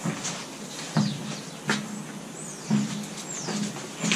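Footsteps on a concrete garage floor, a knock about once a second, with a few short high bird chirps from outside in the second half.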